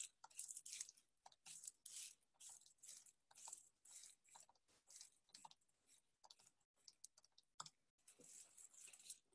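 Faint clicks of TI-84 Plus Silver Edition calculator keys being pressed in quick succession, about two or three a second, as two-digit numbers are keyed into a list.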